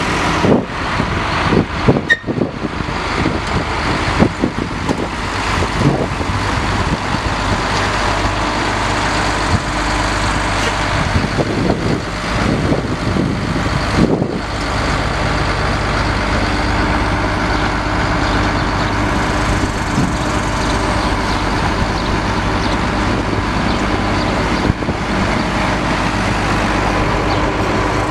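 The six-cylinder multi-fuel engine of a 1968 Kaiser M35 army truck running steadily. There are some irregular knocks and clatter in the first few seconds.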